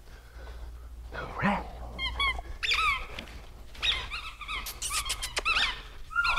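A dog giving short, high-pitched whines and squeaks in a few quick runs while playing with a ball, with a few sharp clicks about five seconds in.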